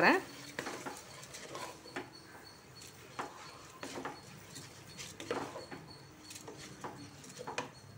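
Wooden spatula stirring soaked rice, moong dal and sautéed vegetables in an aluminium pressure cooker: irregular soft scrapes and scuffs against the pot.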